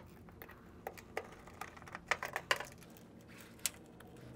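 Scattered sharp clicks and ticks of a screwdriver and wire ends at the screw terminals of a mini split outdoor unit's terminal block as the wires are landed, with a quick run of clicks about two seconds in.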